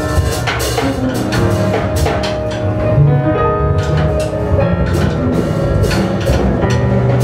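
A free jazz big band playing: a busy drum kit with frequent cymbal and drum strikes under held notes from flutes and saxophones.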